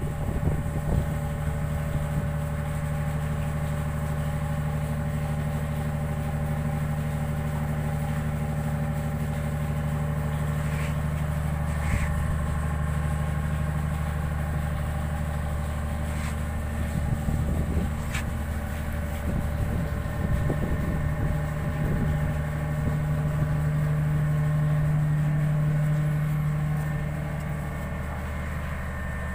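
Ship's diesel engine running steadily, a low even hum that swells slightly near the end, with a few faint light knocks around the middle.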